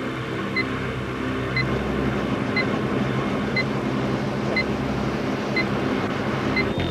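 Short electronic beep once every second, a countdown-timer tick, over a steady low drone.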